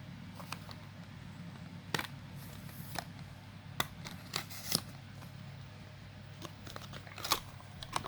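Handling noises: about a dozen short, sharp clicks and taps at irregular intervals, some in quick pairs, over a steady low hum.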